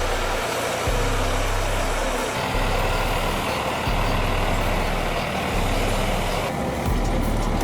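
A heavy machine engine running steadily with a continuous mechanical noise, as a timber trailer's hydraulic loader works.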